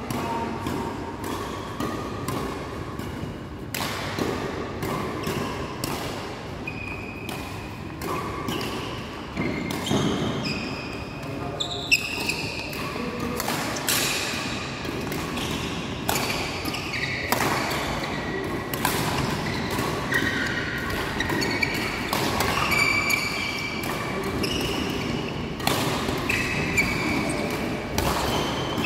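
Badminton rallies: sharp, repeated racket strikes on the shuttlecock, mixed with short high squeaks of court shoes on the floor and footfalls.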